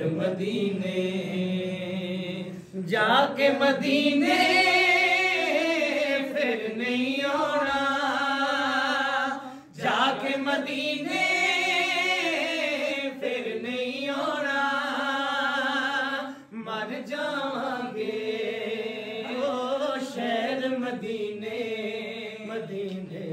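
Group of men singing a Punjabi naat without instruments: a lead voice with others joining in chorus, in long phrases of held, wavering notes with short breaths between them, about 3, 10 and 16 seconds in.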